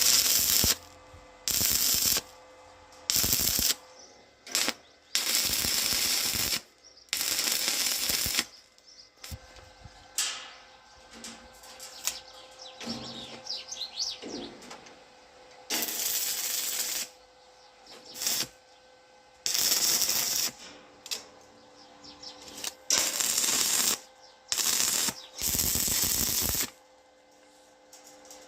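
Electric arc welding in short bursts: about a dozen welds, each a second or two of crackling sizzle that starts and stops abruptly, over a faint steady machine hum.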